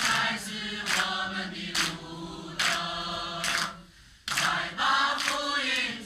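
Church choir of men and women singing a gospel hymn in Chinese, with a short break between phrases about four seconds in.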